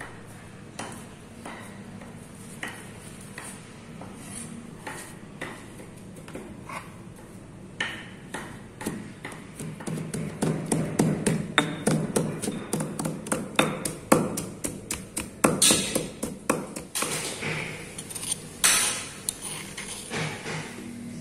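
Cassava leaves being pounded with a pestle in a stone mortar: repeated knocks against the leaves and stone, sparse at first, then faster and louder from about eight seconds in.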